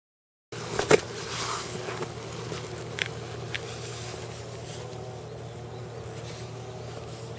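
Motorcycle engine idling steadily, starting about half a second in. A sharp knock comes about a second in, and two lighter clicks follow a couple of seconds later.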